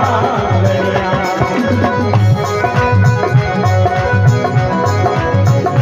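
Instrumental passage of a live devotional bhajan: harmonium and electronic keyboard hold steady chords over a regular hand-drum beat.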